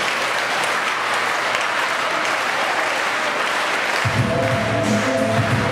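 Crowd applauding, a steady wash of clapping. About four seconds in, a music track with heavy bass starts over the applause.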